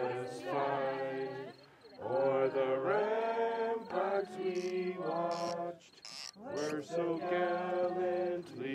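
Voices singing or chanting in long held notes, in phrases of about a second, with brief pauses between them.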